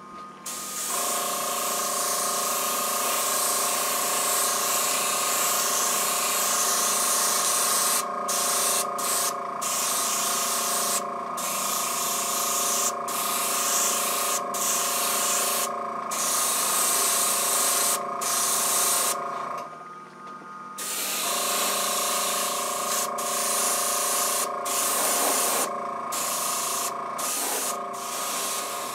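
Airbrush spraying Badger Stynylrez gray primer, a hiss that breaks off and resumes in short gaps as the trigger is worked, over the steady hum of its air compressor. Both stop for about a second around two-thirds of the way through, then start again.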